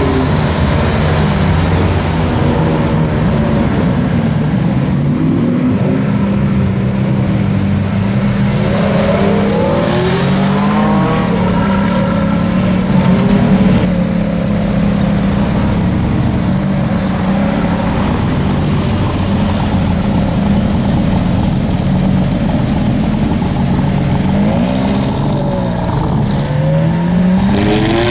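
Ferrari F430 V8 engine running and revving, its pitch rising in several sweeps as it accelerates away, over the steady low running of engines close by.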